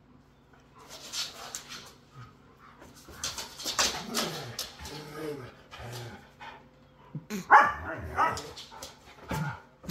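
Two huskies vocalizing at each other in rough play: irregular barks and whiny yips, some sliding in pitch, with the loudest bark about seven and a half seconds in.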